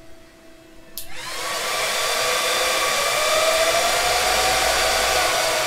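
A click about a second in, then an electric motor spins up into a steady whir with a faint whine that rises and falls slightly, easing off near the end.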